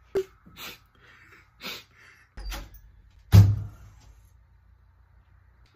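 A wooden bedroom door being handled and opened: a few scattered clicks and knocks, the loudest a thump a little over three seconds in.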